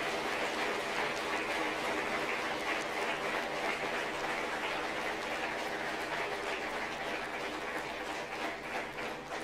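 Audience applauding, a dense steady clapping that slowly fades and thins out into separate claps near the end.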